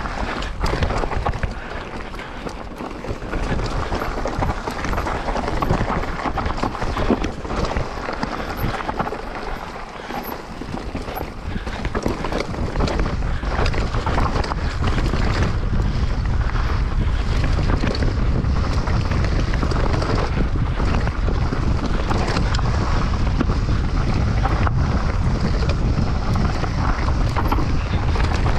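Mountain bike descending a trail: wind buffeting the microphone, with tyres rolling over rock and dirt and the bike clattering in many short knocks. About halfway through the low wind rumble grows heavier and steadier.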